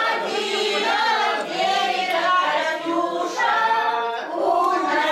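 A choir of mostly women's voices singing a song together without accompaniment, holding notes for up to about a second at a time.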